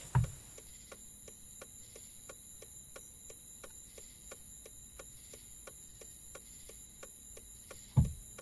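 Car hazard-light flasher ticking at an even pace, about three ticks a second. A low thud sounds just after the start, and a louder deep boom that falls in pitch comes near the end.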